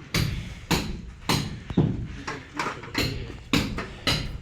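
Hammer blows, a sharp knock about twice a second, eight strikes in an even rhythm.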